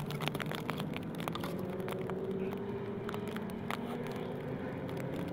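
Superbike engine running at low, fairly steady revs while the bike is ridden slowly, with scattered light crackles.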